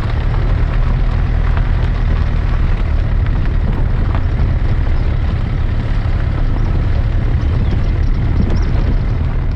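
Storm-force wind buffeting the microphone: a loud, steady rumbling roar with rough crackling gusts.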